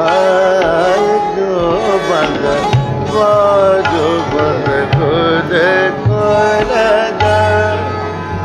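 Live Hindustani classical music, a thumri in raag Bhairavi: a melody line winding through sliding, ornamented phrases over tabla, with deep tabla bass strokes entering about five seconds in.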